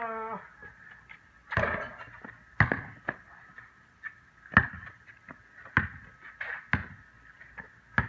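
Basketball being dribbled on a concrete driveway: a run of sharp, irregularly spaced bounces, with a brief shout right at the start and a faint steady high hum underneath.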